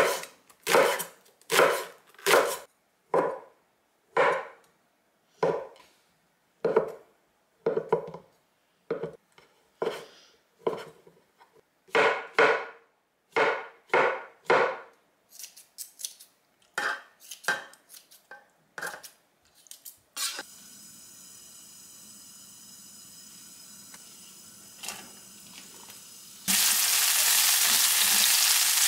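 A cleaver-style kitchen knife chops green onions and then slices button mushrooms on a bamboo cutting board, one sharp knock of the blade on the wood at a time, about one to two a second, for about twenty seconds. After a stretch of faint steady hiss, sliced green onions sizzle loudly in hot oil in a nonstick frying pan near the end.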